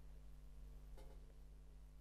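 Near silence: room tone with a low steady hum and one faint tap about a second in.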